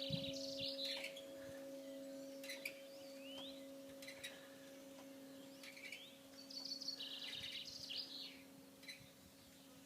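Church bell hum fading away as a steady low tone after the bells have stopped, with a small bird singing a short chirping phrase near the start and again a few seconds later.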